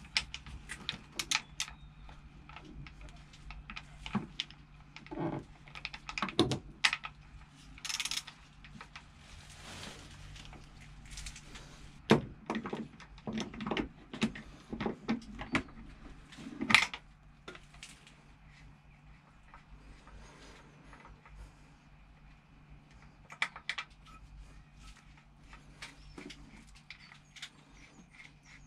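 Hand tools clicking and knocking against metal as a socket ratchet and a spanner work on a fitting of a stopped Bukh DV10 marine diesel during an oil change. The knocks come irregularly, the loudest about 12 and 17 seconds in, and thin out to light scattered handling after that.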